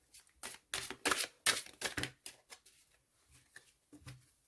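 Tarot cards being shuffled by hand: a quick run of crisp card snaps and slaps through the first two seconds or so, then a few scattered taps.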